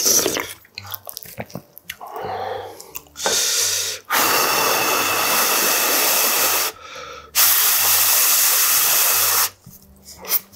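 A person blowing hard on a spoonful of hot rice to cool it: two long breaths of about two to three seconds each with a short pause between, after some soft mouth and spoon clicks.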